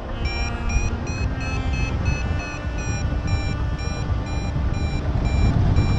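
Paragliding variometer beeping rapidly in short high beeps, about three to four a second: the climb tone that signals the glider is rising in lift. Wind rushes over the microphone underneath.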